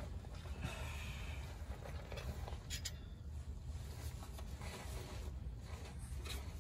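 Faint rustling and scraping of a person shifting on grassy ground and handling a phone, with a brief crackle about three seconds in, over a steady low rumble.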